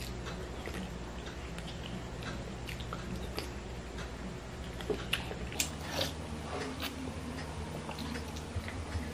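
Close-up eating sounds: a plastic spoon clicking in a small plastic cup and mouth sounds while eating creamy mushroom soup, with the cup sipped from near the end. A steady low hum runs underneath.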